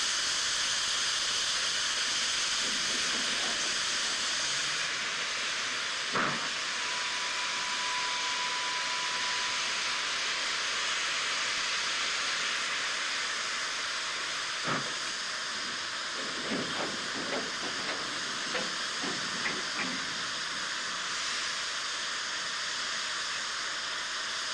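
Steam hissing steadily from a 4-8-2 steam tender locomotive standing with its coal train. There is a sharp knock about six seconds in and another about fifteen seconds in, then a run of lighter clanks.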